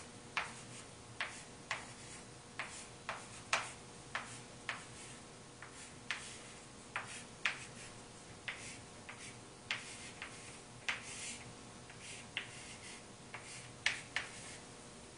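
Chalk tapping against a chalkboard in short, sharp clicks, irregularly about one or two a second, as tick marks and numbers are chalked along a graph axis.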